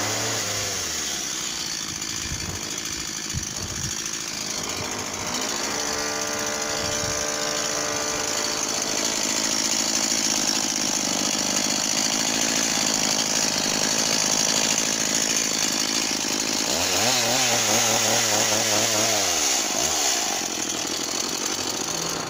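Stihl MS 170 two-stroke chainsaw starting at idle, then revved up and held at high speed for several seconds. It drops back to idle about two-thirds of the way through and revs up again near the end.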